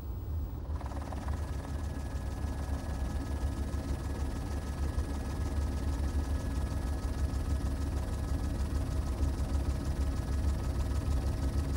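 Helicopter running: a steady low rumble, joined about a second in by a thin whine, growing slightly louder.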